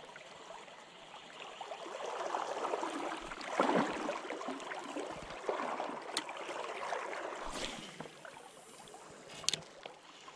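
River water gurgling and splashing in uneven surges, loudest about four seconds in, with two sharp clicks, one near the middle and one near the end.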